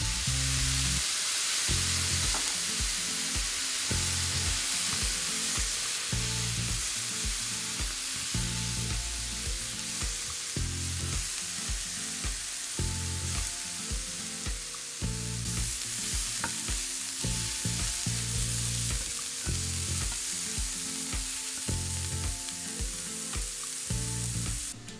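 Sliced mushrooms sizzling hard in a hot grill pan after a splash of soy sauce, stirred with a spatula; the steady sizzle cuts off abruptly just before the end. Background music plays underneath.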